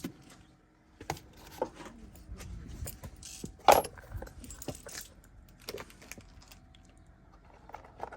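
Metal hand tools clinking and knocking during work on a vehicle, as a series of scattered light clicks with one louder knock a little past the middle.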